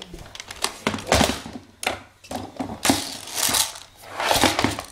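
Handling noise from an airsoft FAMAS rifle being moved and turned in the hands close to the microphone: several short rustling, scraping bursts with a few light knocks.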